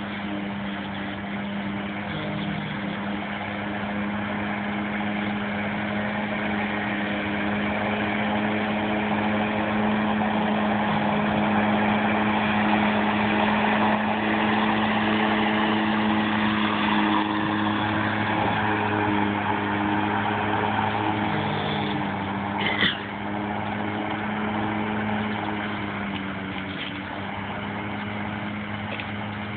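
Autonomous robotic lawnmower running with a steady hum, growing louder as it comes close about halfway through, then fading as it drives away. A single short, sharp knock about three quarters of the way in.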